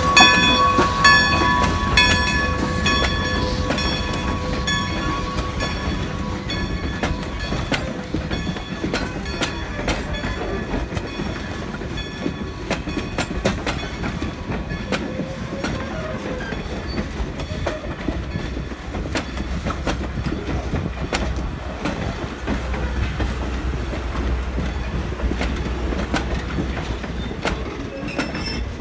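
Steam-hauled passenger coaches rolling slowly past, their wheels clicking over the rail joints with a low rumble. A high squealing tone fades out over the first few seconds.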